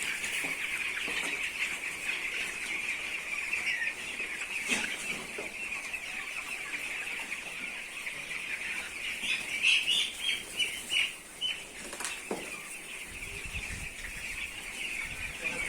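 A flock of chickens in a poultry house, clucking and peeping steadily as a dense chorus. A short run of louder, higher calls comes about ten seconds in, and there are a couple of brief knocks.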